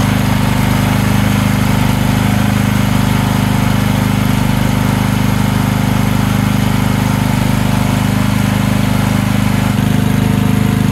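MX15R mini excavator's gasoline engine idling steadily while it warms up.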